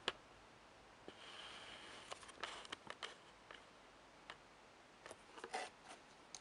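Near silence with a few faint scattered ticks and clicks. A small cluster of them comes about five seconds in, as fingers pick up a small microSD card from the desk.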